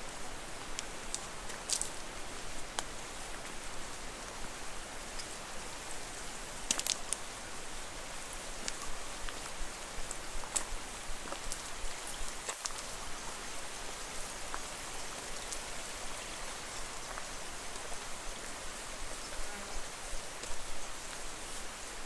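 Temperate rainforest ambience: a steady, soft, rain-like hiss with a few scattered light ticks at irregular moments.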